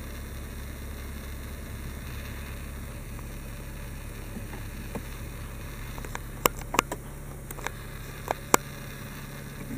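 Steady low hum in the car cabin, then five or so sharp clicks from about six and a half seconds in, as a hand works the plastic centre-console storage tray and trim.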